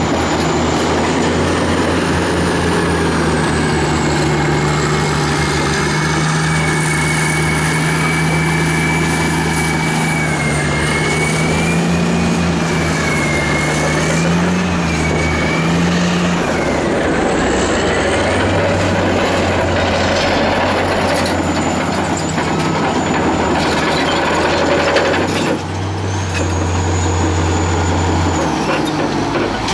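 Caterpillar D10T bulldozer and a wheel-tractor scraper, their heavy diesel engines working under load as the dozer push-loads the scraper. The engine note wavers and shifts as the load changes, over a high whine that rises and falls in pitch through the first half.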